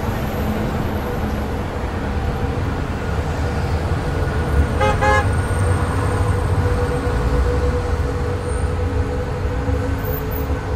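City street traffic noise, a steady low rumble of passing vehicles. A car horn toots briefly about five seconds in.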